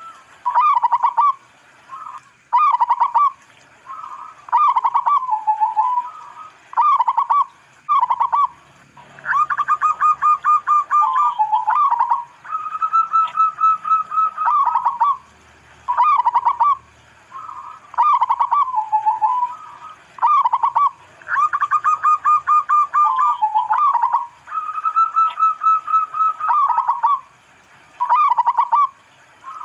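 Zebra dove (perkutut) cooing in repeated phrases of fast, pulsed staccato notes, some held at one pitch and then dropping at the end, with short pauses between phrases.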